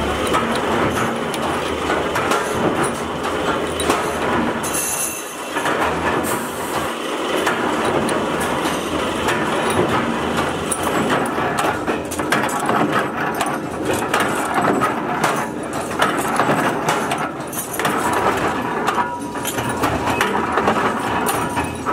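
Workshop machinery running with a steady, dense clatter of many small knocks.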